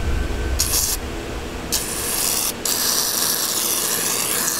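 Aerosol can of shaving cream spraying foam into a mixing bowl: two short hissing spurts, then a long steady hiss from just past halfway.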